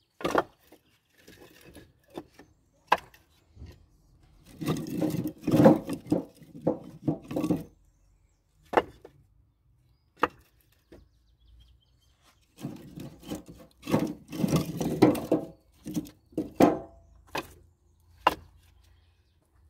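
Split firewood logs knocking and clattering against each other as they are handled and stacked: scattered single knocks, with two longer stretches of clattering, one around five seconds in and another from about thirteen seconds.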